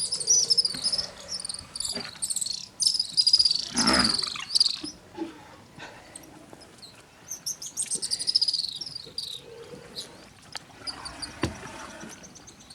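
High-pitched chirping calls in three bouts, the calls gliding downward, from small creatures around a waterhole. About four seconds in, a single louder, fuller sound with a low part rises above the chirping.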